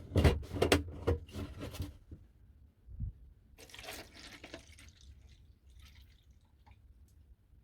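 Liquid splashing and dripping as rusty hammer heads go into a container of de-rusting solution, with a cluster of sharp splashes in the first two seconds, a dull knock about three seconds in, then fainter drips.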